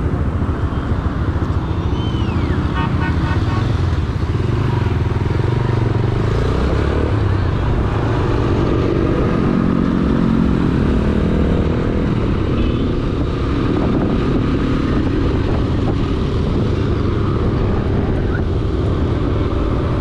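Yamaha YBR125G's small single-cylinder four-stroke engine running under way, heard from the rider's seat with road and wind noise. Its note climbs as the bike picks up speed about halfway through. A vehicle horn beeps briefly a few seconds in.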